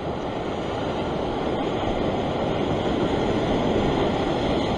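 Ocean swell surging against a rock ledge and washing back off it, a steady rushing wash that swells a little in the middle.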